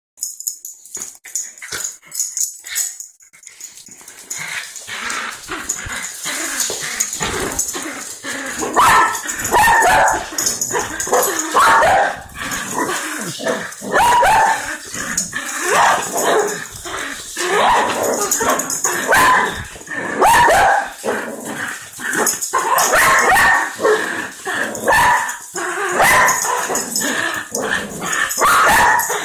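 Small dogs barking and yipping again and again during a rope-toy tug-of-war. Many sharp clicks of claws scrabble on a tile floor. It starts quieter and grows louder after several seconds.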